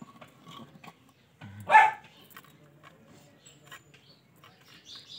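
One short, loud animal call about two seconds in, over faint handling rustle and clicks.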